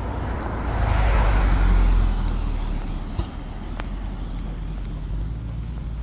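A car passing by on the road: its tyre and engine noise swells over the first two seconds, then fades away.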